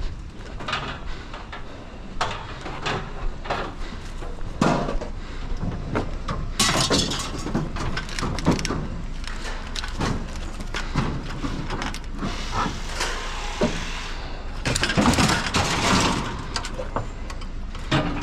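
Curbside scrap metal being handled: irregular clanks, knocks and rattles, with two longer clattering scrapes, one about six seconds in and one near the fifteen-second mark.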